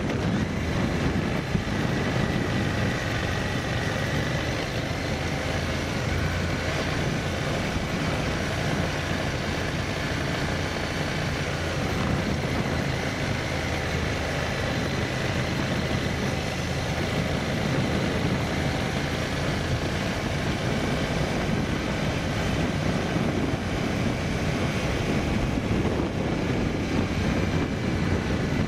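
Motor vehicle driving along a rough road: a steady run of engine, tyre and wind noise, with no change in pace.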